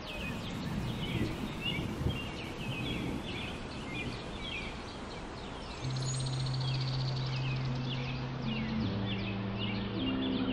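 Opening of an ambient background music track: birds chirping over an outdoor nature ambience, then sustained low synth-like notes fade in about six seconds in and build into slowly changing chords.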